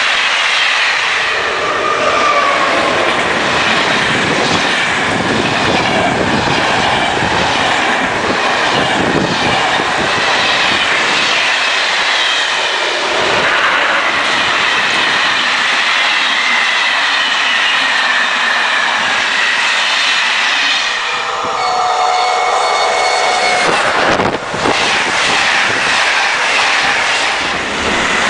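Passenger trains passing close at speed on an electrified main line: the steady rush and rumble of coaches rolling by, with repeated wheel clicks over the rail joints and some wheel squeal. About three-quarters of the way through, a steady pitched tone sounds for about two seconds. Near the end an ÖBB Taurus electric locomotive goes by.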